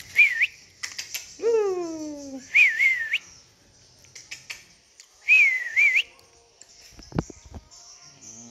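A person whistling to call dogs: three short whistles a couple of seconds apart, each wavering up and down around the same high pitch. About a second and a half in, a drawn-out call falls in pitch, and near the end there is a dull thump.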